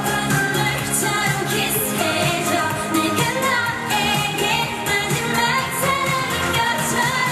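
K-pop song playing: sung vocal lines over a steady beat with instrumental backing.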